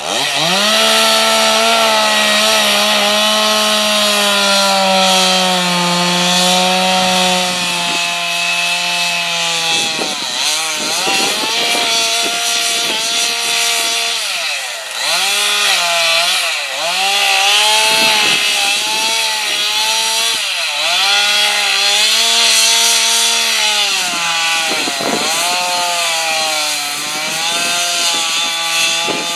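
Two-stroke chainsaw revving up and cutting into a wooden carving. The engine holds a steady high pitch for the first several seconds, then sags repeatedly as the chain bites into the wood and picks up again between cuts.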